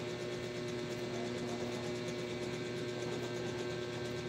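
Steady hum of a small motor, even throughout, with a few fixed tones over a soft hiss.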